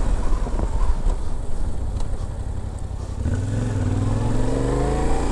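Yamaha Ténéré 700's parallel-twin engine with a low road rumble. About three seconds in, the engine note comes up clearly and rises steadily in pitch as the bike accelerates.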